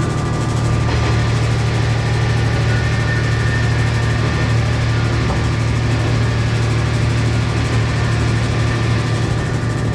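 Diesel railcar's engine running with a steady low drone, a couple of faint steady whines above it.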